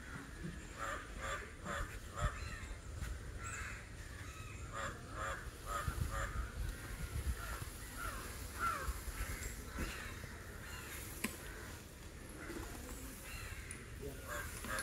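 Crows cawing, many short calls overlapping and repeating throughout.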